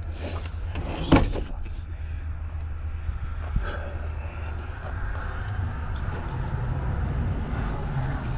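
Clunks and knocks of a seat and its parts being handled in a truck cab, two loud ones about a second apart near the start and a sharp click later, over a steady low rumble.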